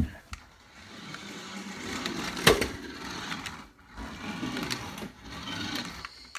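Small electric motor of a toy RC monster truck whirring, with its tyres rolling on a hard floor, in two runs. There is a click at the very start and a sharp knock about two and a half seconds in.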